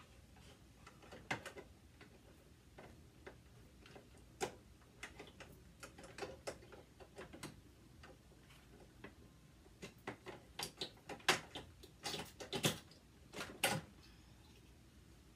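Hard plastic dollhouse pieces clicking and knocking against each other as they are handled and fitted together. Scattered single clicks, coming faster and louder in the last five seconds.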